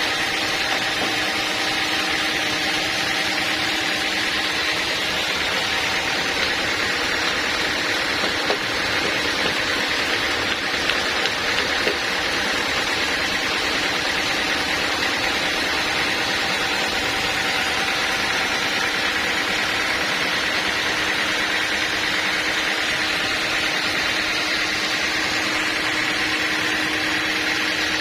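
Sawmill machinery running steadily, a constant mechanical hum with a steady high whine over it.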